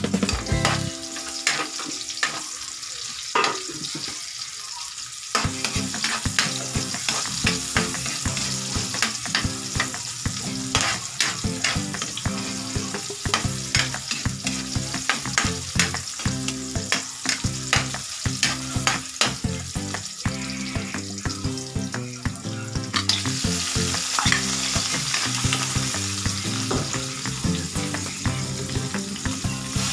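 Food sizzling in a hot pan while it is stirred, with frequent sharp clicks and scrapes of the utensil against the pan.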